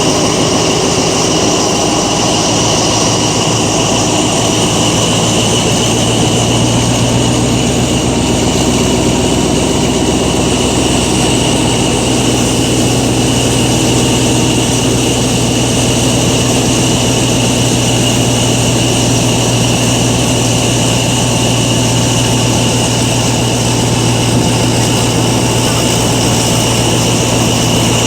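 Diesel locomotive 4222 hauling a passenger train, its engine running in a steady low drone that grows stronger about six seconds in, with a steady high whine over it.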